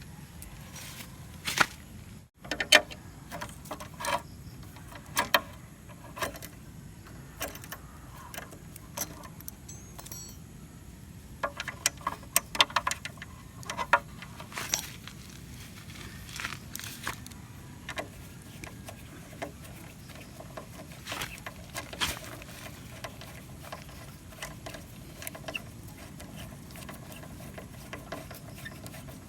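Irregular metallic clicks and clinks of hand tools and small bolts as body bolts are fitted and tightened into motorcycle fairings, with a few quick runs of clicks partway through.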